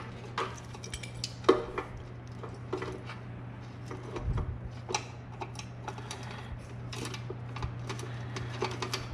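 Irregular small clicks, taps and rattles of plastic wire connectors and cables being handled and plugged together on an electric scooter's controller wiring, over a steady low hum.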